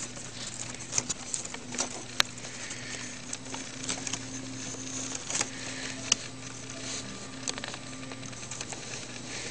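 Irregular light ticks and taps over a faint steady hiss and a low steady hum.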